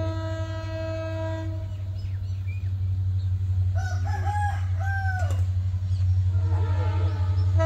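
The horn of an approaching diesel locomotive holds a steady chord, then stops about a second and a half in. A rooster crows about four seconds in, and more calls follow near the end, all over a low steady rumble.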